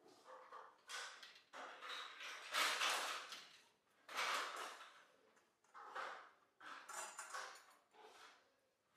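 Irregular rustling and scraping of network cable and pull string being handled and dragged through a drop ceiling, in several uneven bursts, the loudest a little over two seconds in.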